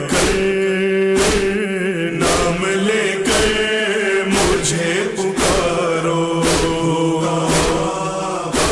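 Wordless vocal chanting held on long notes in a lament, over a sharp percussive beat about once a second.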